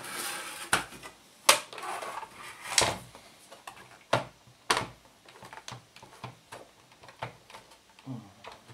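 Knocks and clicks from the plastic case of a Geloso G257 reel-to-reel tape recorder being turned over and handled on a tabletop. A handful of sharp knocks come in the first five seconds, the loudest about a second and a half in, then lighter ticks.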